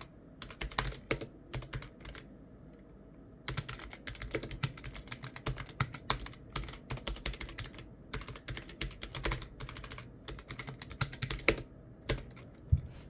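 Typing on a computer keyboard: quick runs of key clicks in bursts, with a short pause about two seconds in and a couple of louder single keystrokes near the end.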